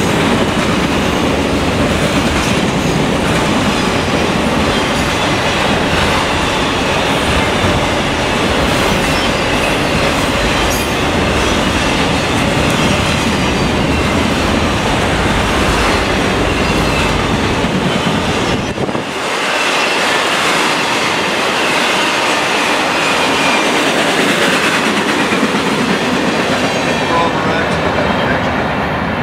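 Freight train of autorack cars rolling past close by: steady, loud wheel-on-rail noise with clickety-clack over the rail joints. About two-thirds of the way through, the low rumble drops away and a thinner, higher rail noise carries on.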